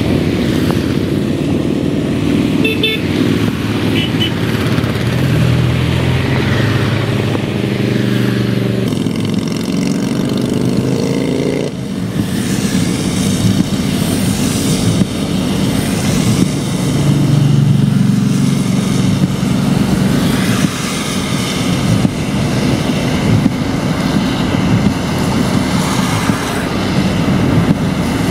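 A stream of motorcycles riding past one after another on a wet road, each engine swelling and fading as it passes, with tyres hissing on the rain-soaked tarmac. A few short horn toots sound about three seconds in.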